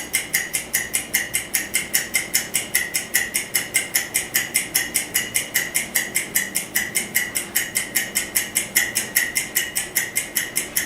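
Ticking-clock sound effect: rapid, perfectly even ticks, about five a second, counting down the time allowed for an exam.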